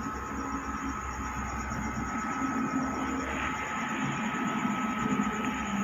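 Steady machine hum and low rumble with a thin, constant high whine. There is no welding arc crackle.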